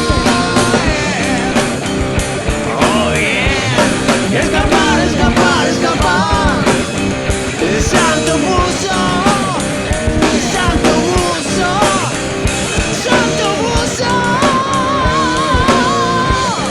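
Heavy metal band music: distorted electric guitars, bass and drums, with a lead line that bends in pitch and holds a long vibrato note near the end.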